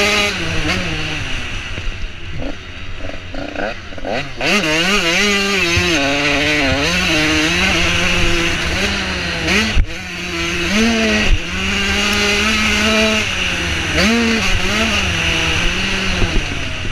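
85cc two-stroke motocross bike engine revving hard and shifting, its pitch climbing on the throttle and dropping as it is chopped again and again. Around ten and eleven seconds in the engine briefly dips and there are a couple of sharp knocks.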